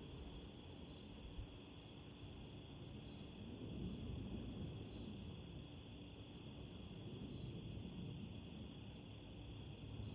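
Wind gusting against the microphone as a low rumble that swells and eases, with a cricket giving short, high chirps over and over.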